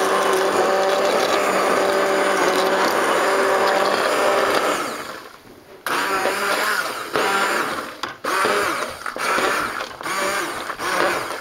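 Hand-held immersion blender whirring as it purées cooked potato and broccoli in broth. About five seconds in, its motor winds down and stops. It then starts again sharply and runs in uneven surges, its pitch rising and falling.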